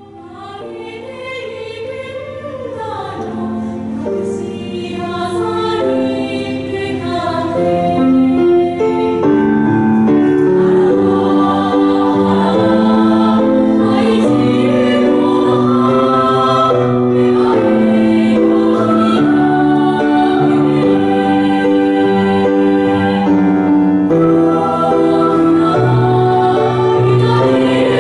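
A choir singing a slow song in long held notes, fading up over roughly the first ten seconds and then steady.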